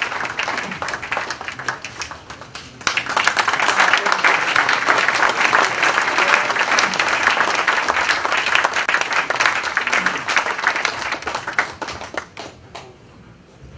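Audience applauding in a hall. The clapping grows suddenly louder about three seconds in, holds, then dies away near the end.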